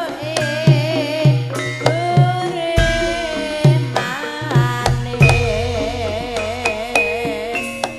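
Live Javanese karawitan (campursari-style) music: a female singer (sinden) sings a wavering melody with strong vibrato over the regular strokes of a kendang hand drum and the gamelan ensemble.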